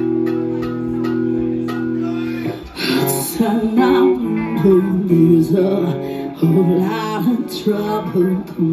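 Live rock band playing: electric bass and distorted guitar hold one sustained chord, then about two and a half seconds in the band breaks into a fast riff with drum hits and cymbal crashes.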